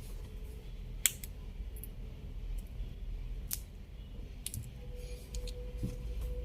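A few scattered small clicks and taps from handling a multimeter and its test leads while testing a ceiling fan's run capacitor, over a low steady hum. A faint steady tone comes in near the end.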